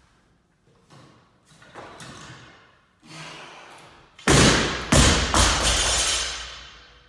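Loaded barbell dropped onto a lifting platform: two heavy thuds about half a second apart, followed by a ringing decay lasting about two seconds as the bar and plates settle.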